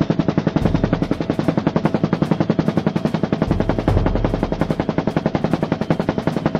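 Helicopter rotor beating in a fast, even, steady rhythm of sharp chops.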